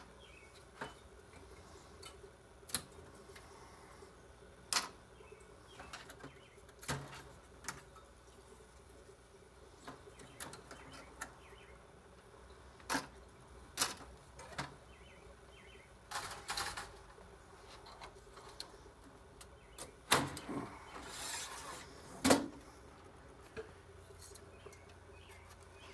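Scattered sharp clicks and knocks of circuit boards and small parts being handled and set down, at irregular intervals, with a couple of short scraping sounds.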